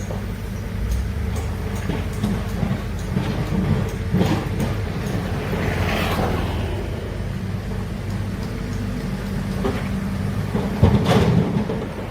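Large excavator's diesel engine running steadily, with a few short knocks and clanks, the loudest near the end.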